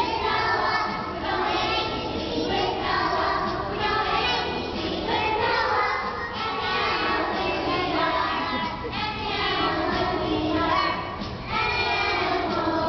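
A group of toddlers singing an alphabet song together, with music playing along.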